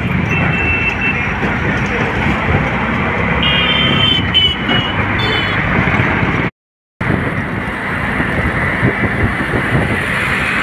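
City road traffic heard from a moving vehicle: a steady rumble of engines and tyres, with short vehicle horn toots once near the start and a few times around the middle. The sound cuts out for about half a second about two-thirds of the way through.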